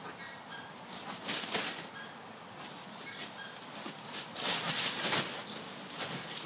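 Smew ducklings peeping faintly in short, high, repeated notes, with brief bursts of noise about a second in and again, loudest, around four to five seconds in.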